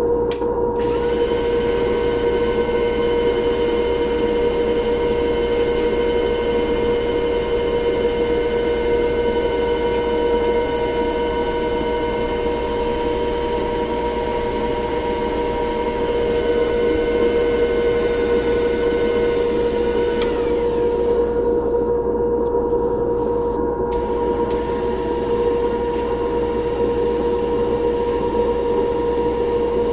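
An electric power tool's motor running steadily, with a constant mid-pitched hum over a hiss. Its higher overtones briefly drop out about two-thirds of the way through.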